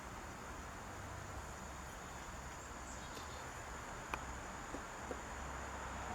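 Steady high-pitched chirring of crickets or similar insects, with a few faint clicks from handling a small pocketknife about four to five seconds in.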